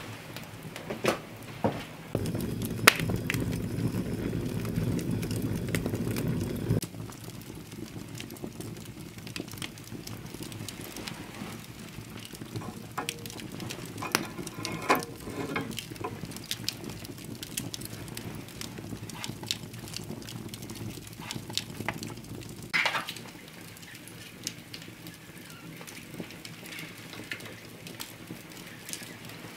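Wood fire in an open stone hearth crackling, with scattered sharp pops. A louder, low rushing sound comes in about two seconds in and stops abruptly about five seconds later.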